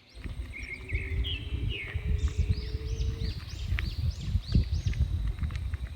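Birds chirping, many short repeated notes, over a loud, gusty rumble of wind buffeting the microphone. A faint steady hum runs through the first half.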